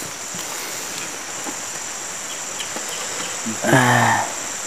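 Steady high-pitched insect chorus of crickets or cicadas trilling. A short vocal sound from a person, the loudest thing here, comes about three and a half seconds in.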